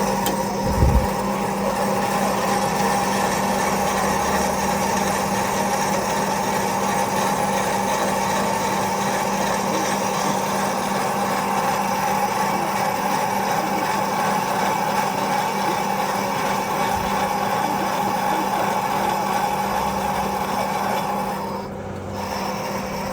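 Metal lathe running with a steady machine hum, with a short knock about a second in. The hum drops in level near the end.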